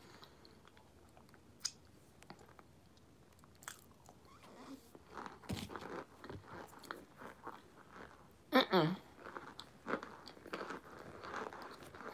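A person biting and chewing crumbly white chunks of a homemade microwaved brick, making soft, scattered crunches. A short falling voice sound from the eater comes about two-thirds of the way through.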